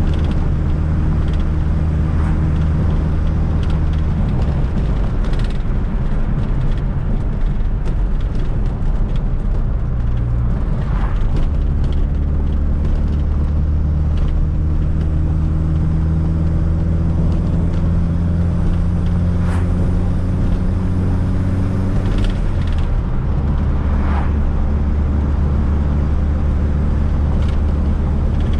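Fiat Coupe 16V Turbo's turbocharged four-cylinder engine running while driving. Its note holds steady, changes about four seconds in, climbs slowly in pitch through the middle, then drops suddenly and holds steady again. Light clicks and rattles sound over it now and then.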